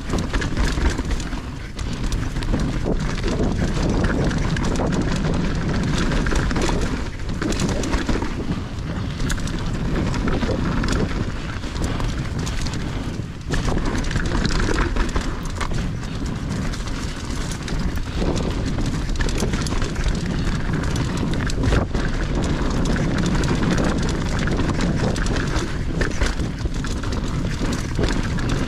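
Mountain bike ridden over a rough dirt trail: a steady rumble of tyres and wind on the microphone, with frequent knocks and rattles from the bike over bumps.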